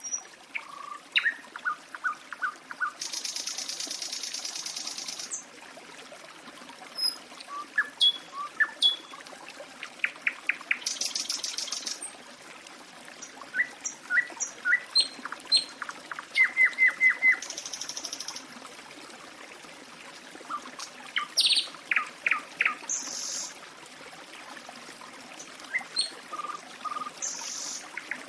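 Several songbirds chirping and trilling in short phrases, with a few high buzzy phrases every few seconds, over a steady trickle of running water.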